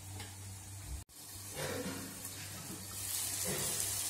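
Faint sizzling of onion and tomato frying in oil in a kadai, over a steady low hum. The sizzle grows louder near the end.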